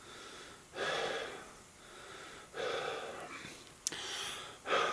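A man breathing heavily close to the microphone, about four long breaths in and out, with a sharp click about four seconds in.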